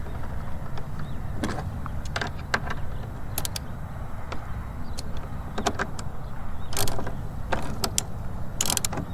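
Scattered sharp metallic clicks and clinks of a wrench working the nut on a car battery's negative terminal, over a steady low background rumble.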